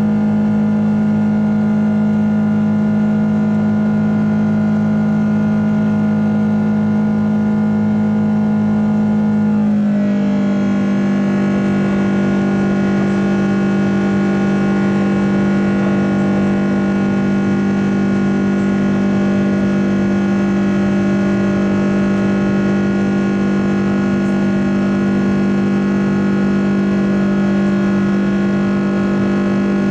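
Airbus A330-300's Rolls-Royce Trent 700 turbofan engines heard inside the cabin during the climb after takeoff: a loud, steady drone with a strong low hum and many steady tones. About ten seconds in, the pitch steps down slightly and holds as the thrust is reduced from takeoff to climb power.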